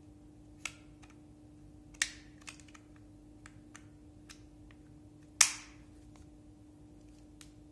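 Plastic clicks and snaps of a guide comb attachment being fitted onto and taken off a Uiter Pro hair clipper's blade: a few sharp clicks with lighter ticks between, the sharpest snap about five and a half seconds in.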